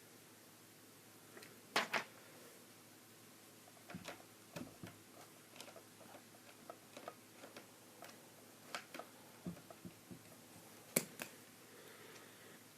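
Plastic toy playset pieces being handled and pressed into place: a scatter of faint, irregular clicks and taps, with louder clicks about two seconds in and near the end.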